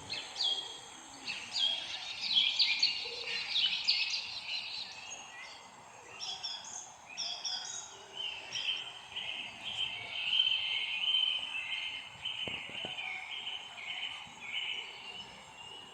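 Several birds chirping and singing at once, in many short, quick, down-sliding high notes. In the second half one bird settles into a steady series of repeated chirps.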